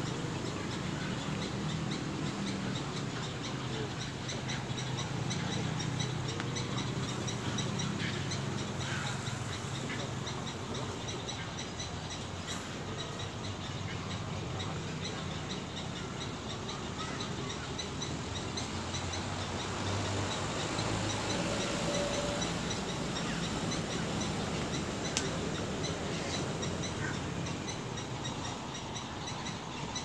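Outdoor ambience by a pond: a fast, evenly repeating high-pitched chirping, over a low steady rumble.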